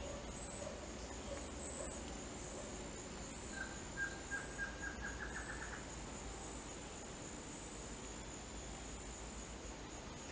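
A steady, high-pitched insect drone with two louder swells in the first two seconds. Midway, a bird gives a short run of quick notes that speed up and rise slightly in pitch.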